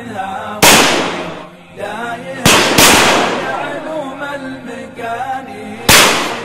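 Four shotgun shots, sharp cracks each with a short fading tail: one about half a second in, a quick pair a third of a second apart around two and a half seconds, and one near the end. A man singing an Arabic poem runs underneath.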